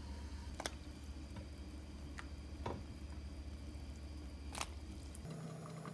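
Scattered light clicks and knocks, about five of them, over a low steady hum whose pitch shifts near the end.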